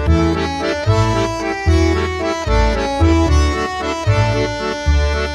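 Background music: an accordion-led tune over a steady, regular bass line.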